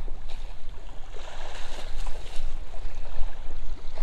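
Outdoor wind rumbling on the microphone over a steady wash of water.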